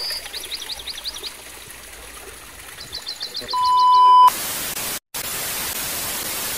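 TV-static glitch transition effect. Faint rapid high chirps are followed by a steady test-tone beep that swells for under a second, then a loud hiss of white-noise static that briefly cuts out.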